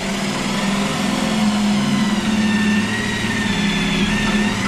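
Cordless drill running steadily under load against the sheet-metal side of a stove as an L bracket is fastened: a motor whine over a harsh, dense noise.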